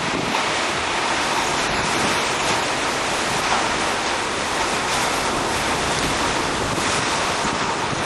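Strong windstorm blowing in a steady, loud rush of noise with no letup.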